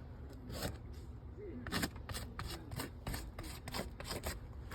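A quick run of short taps and scuffs, about a dozen, coming faster in the second half, over a steady low rumble.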